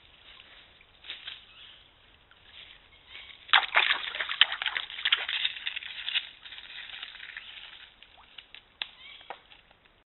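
A deer splashing and sloshing through the shallow edge of a stream. The splashing is loudest from about three and a half to six seconds in, followed by a few lighter splashes and ticks.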